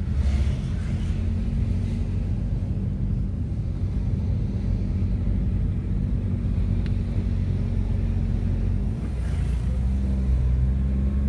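Car engine droning steadily, heard from inside the cabin while driving, with the pitch of the drone changing about nine seconds in.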